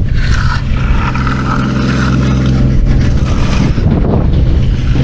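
An engine running steadily at a constant speed, loud and close, with a rougher higher-pitched noise laid over it for the first few seconds.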